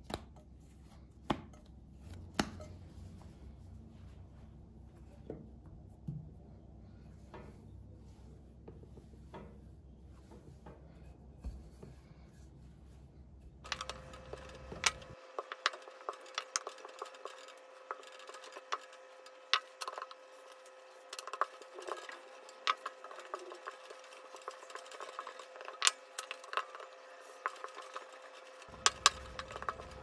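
A few light clicks and knocks as hands work soft dough in a glass bowl. About halfway through, a wooden rolling pin rolls out dough on a wooden tabletop with frequent sharp knocks and clicks.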